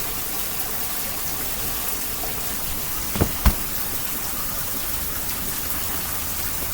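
Heavy rain pouring down in a steady, even hiss. Two sharp taps about halfway through, a fraction of a second apart.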